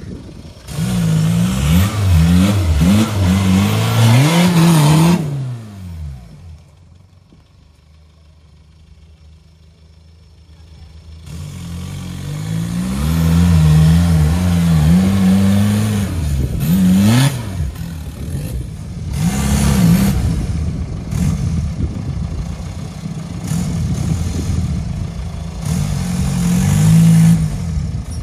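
Tuned 1.9 TDI diesel engine of an off-road 4x4 revving hard, its pitch repeatedly climbing and dropping under heavy throttle. About six seconds in the revs fall away and it goes quieter for about five seconds, then the hard revving picks up again.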